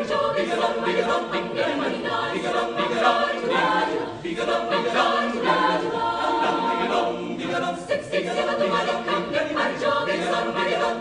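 Background music: a choir of voices singing.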